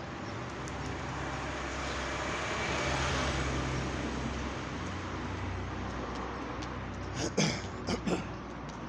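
Road traffic at a roadside: a vehicle passes, its tyre and engine noise swelling to a peak about three seconds in and then fading over a steady low engine hum. Near the end come three short, sharp sounds.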